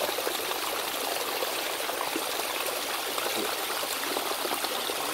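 Hot spring water running and splashing steadily as it spills down over rocks into a small pool.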